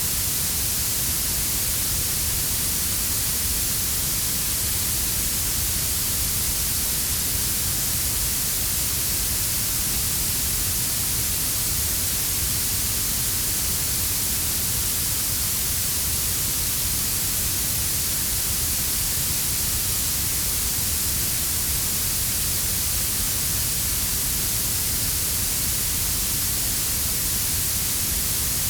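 Synthetic blue noise with a quieter brown-noise layer under it. It is a steady, unchanging hiss, strongest in the high treble, with a low rumble beneath.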